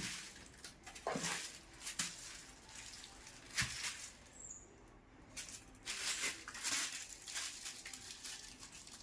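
Cardboard boxes and packets of firecrackers being handled: scattered rustling and light knocks of packaging, with a brief lull about halfway through.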